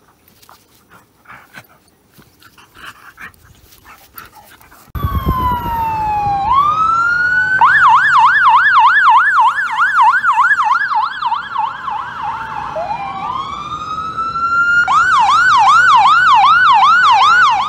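Fire-department box ambulance's electronic siren, starting abruptly about five seconds in. It switches between a slow rising-and-falling wail and a fast yelp of about four sweeps a second: wail, then yelp, wail again, and yelp from near the end.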